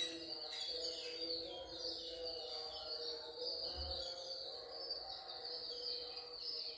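Quiet background music with held melodic notes, and high quick chirping sounds over it.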